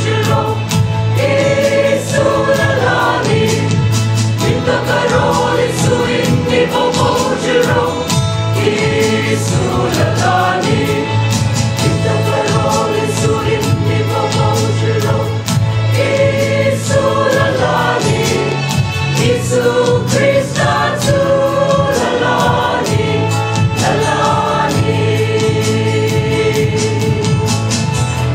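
Mixed choir of men's and women's voices singing a gospel song together.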